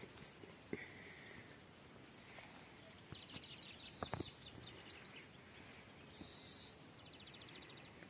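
Faint high bird calls: a soft note about a second in, then two short, louder high calls about four and six seconds in, with a faint rapid ticking trill between them.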